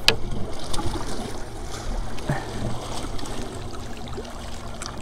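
Water trickling and sloshing around a small boat, with one sharp click near the start.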